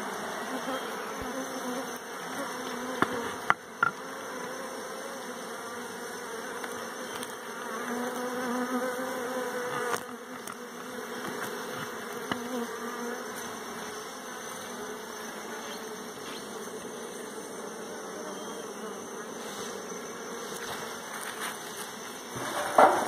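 Honeybees buzzing steadily around an open wooden box hive, a wavering hum. A few sharp knocks about three seconds in and another near the end.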